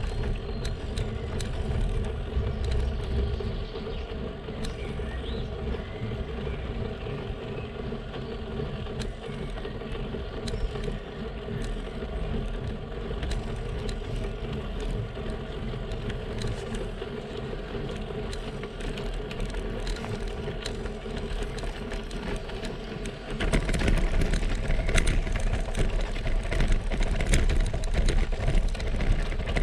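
Road bike climbing on asphalt with steady tyre and rolling noise and light ticks. Near the end it rolls onto cobblestones, and the noise turns suddenly louder into a continuous rattle.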